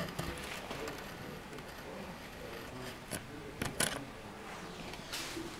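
Low room noise with a few short, sharp clicks or knocks about three to four seconds in.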